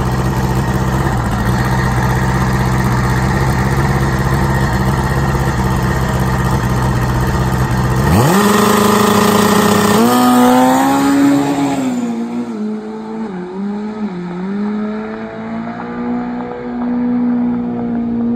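Turbocharged drag-racing Funny Bike's engine running steadily at the starting line. About eight seconds in it launches with a sharp rise in pitch, then shifts up through the gears with short dips in pitch, growing fainter as it runs away down the strip.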